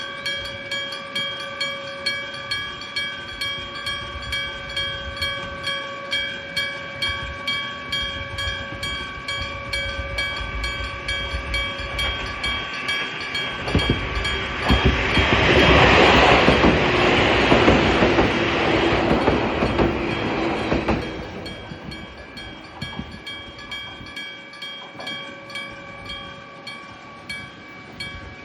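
Electric-bell (denshō-type) level crossing warning bell, struck about twice a second and ringing steadily. A train passes through the crossing in the middle, and for several seconds its wheel and rail noise is the loudest sound and all but drowns the bell, which rings on after it.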